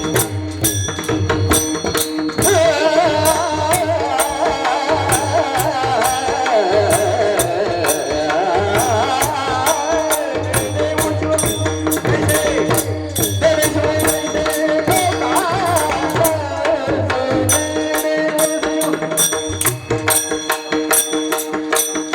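Marathi kirtan music: a voice sings a wavering devotional melody over a steady held drone, with a hand drum and fast rhythmic metallic clicks of hand cymbals keeping time. The voice falls away near the end, leaving the drone and percussion going on.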